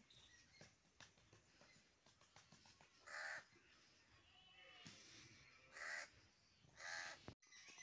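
A crow cawing: three short, harsh caws, the last two about a second apart.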